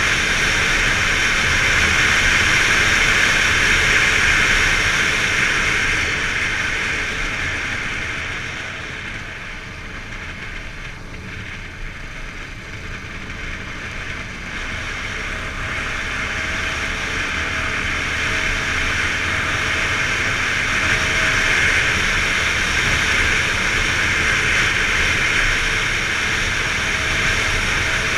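Wind rush on the microphone and the running of a Yamaha XTZ 250 Lander's single-cylinder engine while the motorcycle is ridden. The noise dips about a third of the way in and then builds back up.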